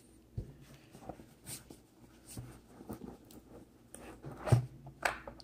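Faint scratching, rustling and light tapping of hands handling a cardboard smartphone retail box, with a louder knock about four and a half seconds in as the box is set down and turned, and another just after.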